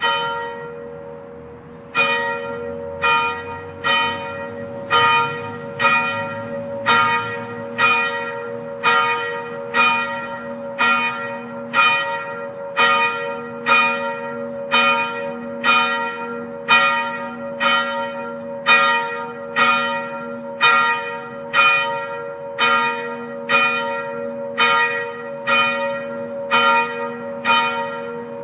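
Church bell tolling, struck about once a second after an opening stroke and a pause of about two seconds. Each stroke rings with a bright metallic attack that fades, over a steady low hum that carries on between strokes.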